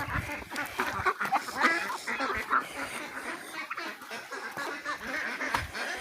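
Ducks quacking, many short calls overlapping one another.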